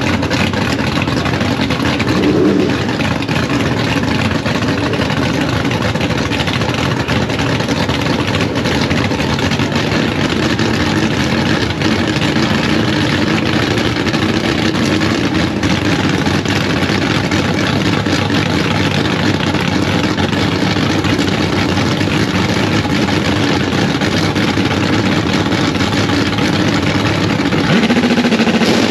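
Drag-racing cars' engines running steadily and loudly, with an engine revving up near the end.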